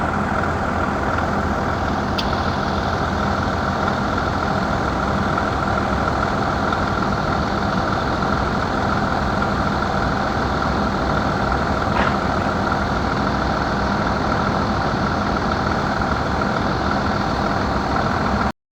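Volvo Penta six-cylinder engine running at a steady speed, then cutting off suddenly near the end.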